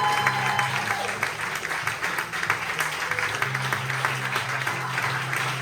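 Audience applauding, with music playing underneath in steady low notes.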